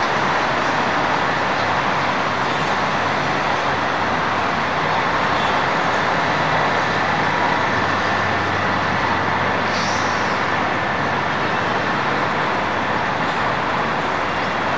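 Concrete mixer trucks' diesel engines running, a steady unbroken engine drone.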